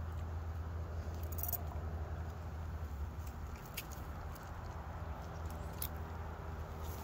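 Faint jingling and clicking, as of a dog's collar tags and footsteps on a walk, over a steady low hum.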